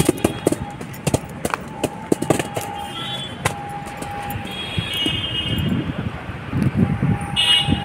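Irregular sharp taps and knocks of a plastic stick hitting a concrete floor and a plastic ball, with duller thumps near the end, over a steady humming tone in the background.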